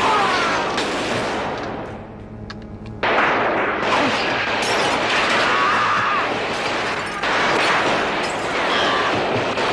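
Heavy, continuous automatic gunfire from several guns in a shootout. It eases off briefly about two seconds in, then resumes at full intensity.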